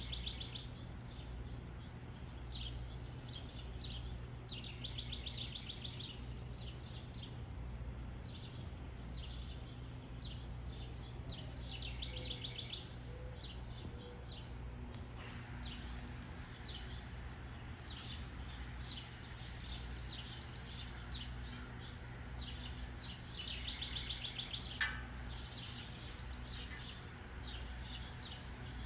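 Songbirds singing rapid trilled phrases every few seconds over a steady low background hum, with a sharp high chirp about two-thirds of the way through.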